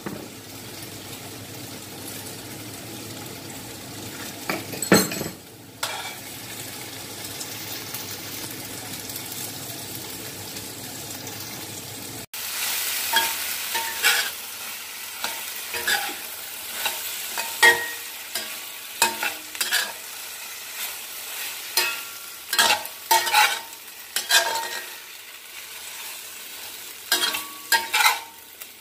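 Shrimp, tempeh and vegetables sizzling in a stainless steel wok over a gas burner, with a single clink about five seconds in. From about twelve seconds in, a metal spatula stirs the food, scraping and clinking against the wok over a louder sizzle.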